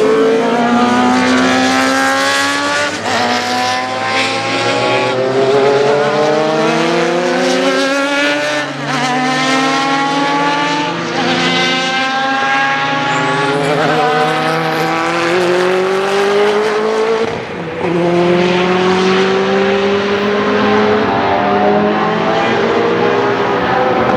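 Group C prototype race car engines accelerating hard. The pitch climbs through each gear and falls back at every upshift, with more than one car heard at once.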